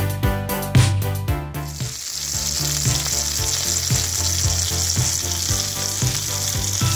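Upbeat background music with a strong beat, then about a second and a half in, Parmesan-crusted chicken frying in a pan takes over as a steady sizzle, with the music quieter beneath it.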